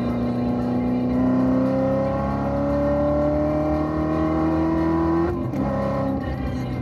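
Supercharged 6.2-litre LT4 V8 of a C7 Corvette Z06 with bolt-on modifications, accelerating in fourth gear with its pitch rising steadily. About five seconds in, an upshift to fifth drops the pitch.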